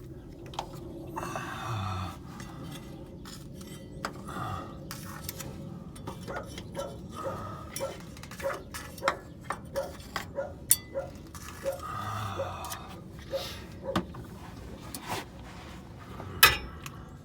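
Light clicks and clinks of hand work on spark plug wire boots and the parts around them, with a run of evenly spaced ticks about two a second through the middle and a sharper knock near the end.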